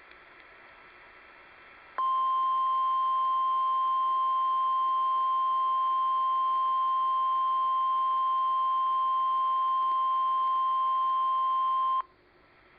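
NOAA Weather Radio 1050 Hz warning alarm tone: a single steady beep that starts about two seconds in, holds for about ten seconds, then cuts off sharply. It is the alert that a severe weather warning message follows. Faint static hiss before and after it.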